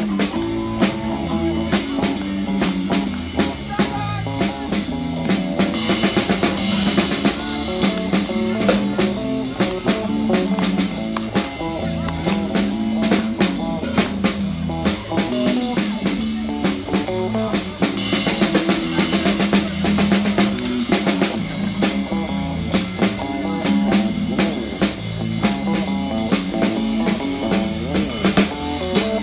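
Live rock-and-roll street band playing: a small drum kit keeps a steady, driving snare-and-cymbal beat over a bass line and strummed electric and acoustic guitars.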